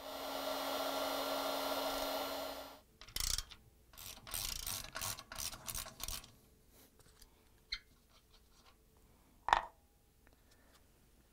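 A DeWalt heat gun blowing steadily with a fan hum, heating seized spider-arm bolts, cut off about three seconds in. After it comes a run of short scratchy bursts, then faint ticks, and one sharp knock about nine and a half seconds in.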